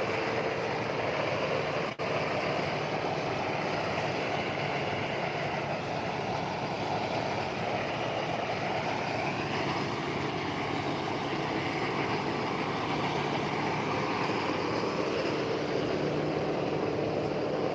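Tractor-driven paddy thresher running steadily, its threshing drum and the tractor engine making one continuous mechanical noise. There is a momentary dropout in the sound about two seconds in.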